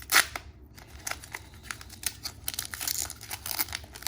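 Foil Pokémon booster pack wrapper being torn open and crinkled by hand, with a sharp rip just after the start and then irregular crackling of the foil, busiest in the second half.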